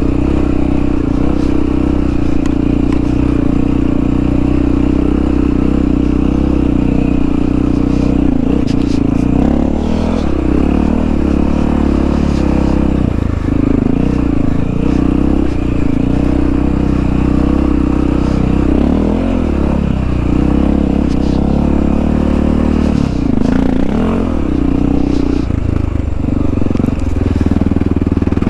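1997 Honda XR650L's air-cooled single-cylinder four-stroke engine running while riding a dirt trail, its pitch dipping and picking up again a few times as the throttle changes. Occasional knocks and rattles from the bike over the rough ground.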